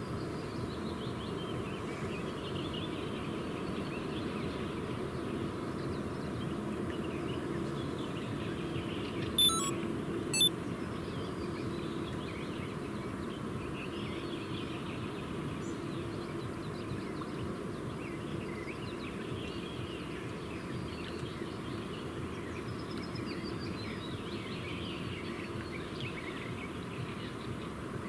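Lakeside outdoor ambience: a steady low hum with faint bird calls in the distance. Two sharp clicks about a second apart come near the middle and are the loudest sounds.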